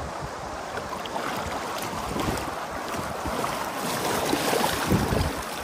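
Wind buffeting the microphone over moving river water, with water splashing as a landing net is dipped into the river in the second half.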